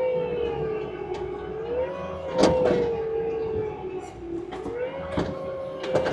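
Diesel machine's engine and hydraulics working hard under load, a steady whine that slowly sags and rises in pitch, with sharp metal clanks about two and a half and five seconds in and again at the end.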